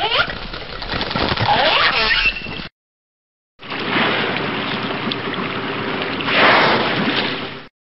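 Whale calls: sweeping high-pitched glides rising and falling over a watery hiss, breaking off after about two and a half seconds. After a short silence comes a longer stretch of rushing water-like noise that swells near the end.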